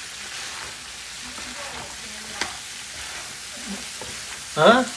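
King crab leg pieces sizzling steadily in a frying pan while a wooden spatula stirs and turns them, with one sharp knock of the spatula about halfway. Near the end the cook gives a short, loud "ah".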